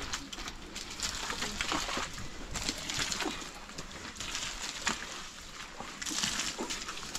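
Water splashing and sloshing in uneven spurts, with many small irregular splatters.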